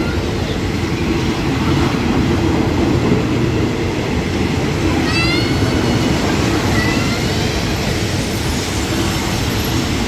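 Passenger coaches of a Thai ordinary train rolling slowly along the platform as the train comes in, with a steady low rumble and short rising squeals about five and seven seconds in.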